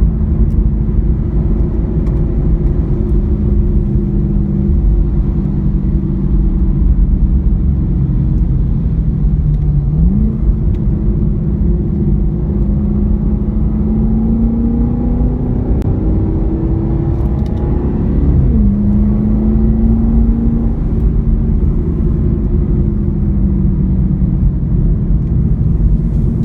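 Chevy SS's 6.2-litre LS3 V8 under way on a road course, with road noise beneath it. The engine note eases off, jumps up sharply about ten seconds in as a lower gear is taken, then climbs steadily under acceleration until an upshift drops it again. After that it settles and eases off.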